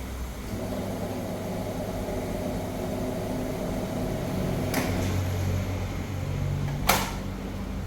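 Fountain soda machine running with a steady motor hum that shifts in tone about five seconds in, with two sharp clicks, the louder one near the end.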